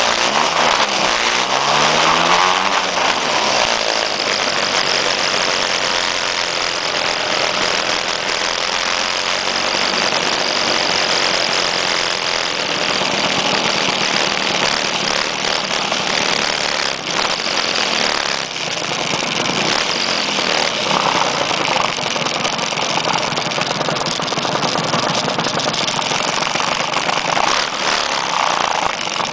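Several vintage motor scooters riding in a group, their engines revving with rising and falling pitch at first, under heavy wind rush on the microphone. In the second half the scooters slow and sit idling.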